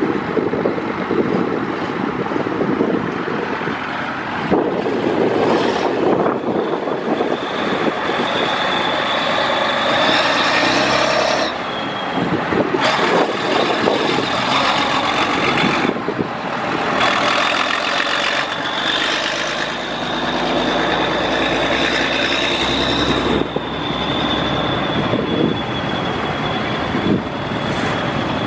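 Heavy vintage vehicles driving past one after another: a coach pulling away, then a six-wheeled recovery lorry, engines running and tyres rolling. A steady high whine runs through much of it.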